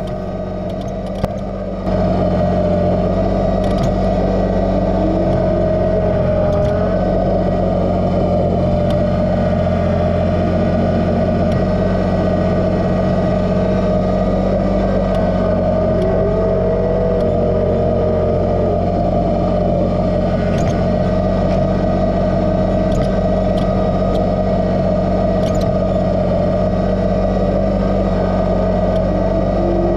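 Kubota BX2380 sub-compact tractor's three-cylinder diesel running steadily under throttle, with a fainter whine that rises and falls in pitch now and then. It gets louder about two seconds in.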